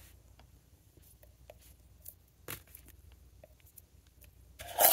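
Small candle tins being handled: a few light clicks and taps, then a short, louder rush of noise near the end.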